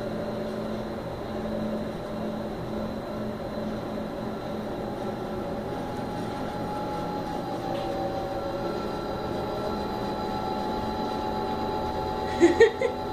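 Emrax 228 axial-flux electric motor spinning on a test bench under its controller's speed profile, a steady electric whine with a higher tone coming in about two-thirds of the way. A brief louder sound near the end.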